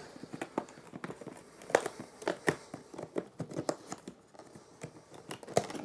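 Tape seal on a cardboard box being torn open, with scattered crackling and rustling of cardboard and packaging as the box is opened.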